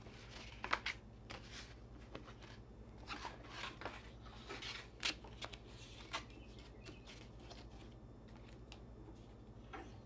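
Faint rustling, scrapes and scattered light clicks and knocks as a 2x72 abrasive belt is handled and slipped over the belt grinder's wheels. The sharpest knocks come about half a second in and around five and six seconds.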